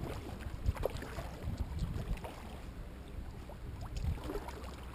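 Water splashing and dripping off a kayak paddle as it is lifted and dipped, over a low steady rumble.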